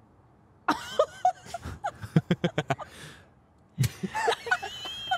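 A woman laughing hard in short rapid bursts, breaking off briefly and then laughing again near the end.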